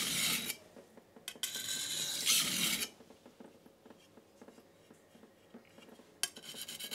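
Steel knife blade scraping on a coarse 220-grit King G-45 whetstone in three bouts of sharpening strokes: briefly at the start, for about a second and a half a little later, and again near the end, with quiet between.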